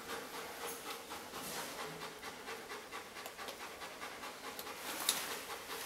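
Police dog panting quickly and steadily, several pants a second.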